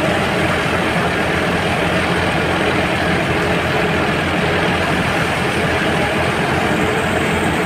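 Tractor-driven thresher running steadily, the Massey Ferguson 385 tractor's engine working under load together with the threshing machine's own mechanical rumble. The sound is loud and even, with no change in pitch or level.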